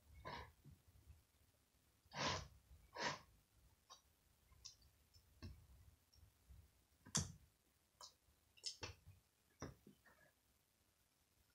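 Faint, scattered clicks and squishes of slime being handled and mixed, with two louder soft sounds about two and three seconds in and a sharper one about seven seconds in.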